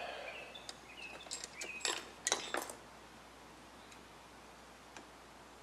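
Light clicks and metal clinks of scissors being handled at a radio chassis's dial-drive pulley, bunched about one to three seconds in, with one faint tick near the end.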